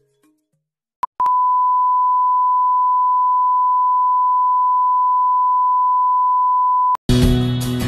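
Colour-bars test-pattern reference tone: after a short blip, one steady pure beep holds at a single pitch for almost six seconds, then cuts off abruptly. Acoustic guitar music starts near the end.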